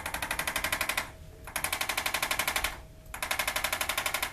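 Hand-held chiropractic adjusting instrument firing rapid mechanical taps, about a dozen a second, in three runs of roughly a second each with short pauses between.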